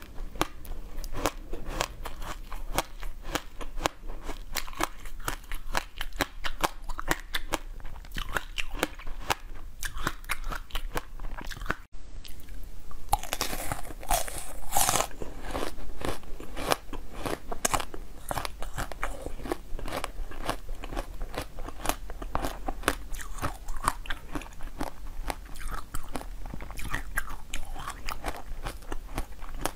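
Close-up crunching and chewing of frozen ice, many sharp cracks in quick succession. First a yellow tray of basil-seed ice is chewed, then after a momentary break about twelve seconds in, blue ice cubes are bitten and crunched.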